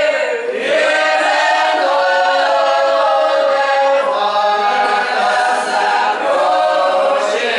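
A Russian folk ensemble singing a round-dance (khorovod) song unaccompanied, many voices together with long held notes.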